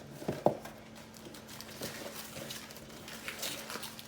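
Fast-food packaging and food being handled on a table: two sharp knocks about half a second in, then light scattered clicks and rustles.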